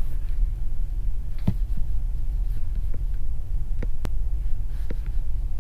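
Steady low throbbing hum of background machinery, with a few light metallic clicks as a feeler gauge and a steel calibration template touch the exhaust valve seat, the sharpest about four seconds in.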